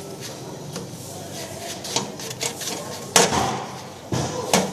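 A few sharp knocks and clattering impacts, the loudest about three seconds in and another near the end.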